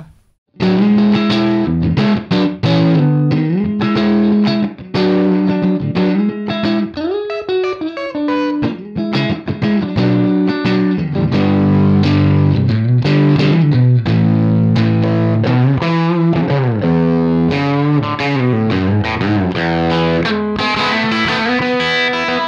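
Electric guitar with single-coil pickups played through a Universal Audio UAFX Lion '68 Super Lead Amp pedal in its Super Bass mode. Both volume controls are pushed for a lightly driven Plexi-style tone with added room ambience. After a brief pause it plays chords and riffs with some bent notes.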